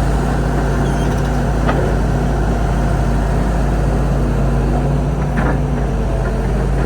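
Excavator's diesel engine idling steadily, with a couple of faint ticks.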